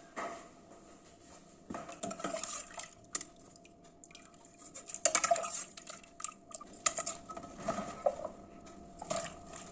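Metal cooking pots and utensils clinking and scraping in scattered, irregular knocks.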